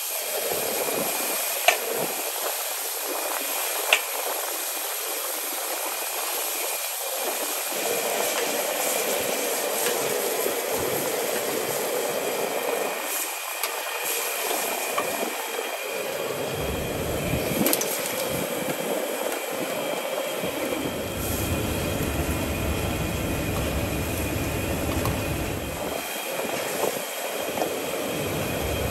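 A gas wok burner runs under a wok of seafood broth at a rolling boil, giving a steady rushing hiss with bubbling. A few sharp clinks of the steel ladle against the wok come in the first few seconds, and a low rumble joins in about two-thirds of the way through.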